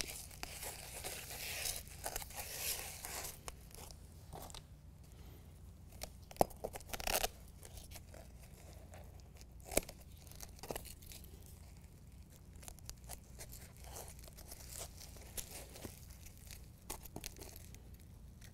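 Adhesive-backed hook-and-loop strip being peeled from its backing and pressed along the edge of a molded foam bed-liner floor piece: intermittent tearing and crinkling of the backing, with a few short sharp ticks.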